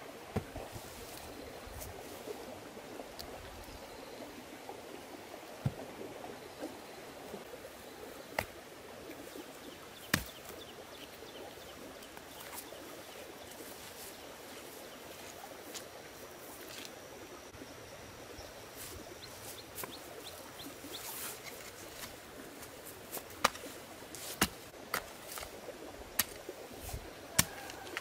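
Steady rush of stream water with scattered sharp knocks, like work on wood, that come several in quick succession near the end.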